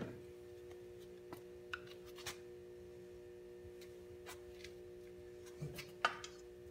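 Scattered faint clicks and light knocks from hands and tools handling hoses and clamps on a dirt bike, with the sharpest knock about six seconds in, over a steady hum.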